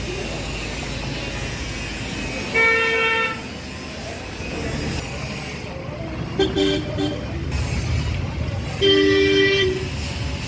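Vehicle horns honking: a blast of just under a second, a short double toot a few seconds later, then another blast of about a second near the end. The horns sit over a steady low rumble of traffic.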